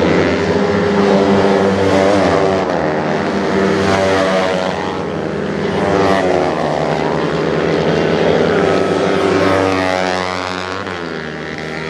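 Several 50cc two-stroke racing minibikes (Honda NSR50 and NS50) running at high revs, their overlapping engine notes rising and falling as they accelerate, shift and back off through the corners.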